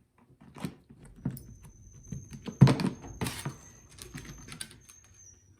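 Clicks and knocks of hands working on the inverter generator's plastic housing to get at the oil fill, with one loud knock about two and a half seconds in. A thin high whine runs through the middle.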